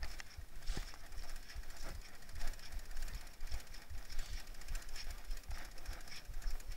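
Mountain bike ridden fast down a rough, wet trail, rattling and clattering with many irregular knocks from the chain, suspension and tyres hitting rocks and ruts.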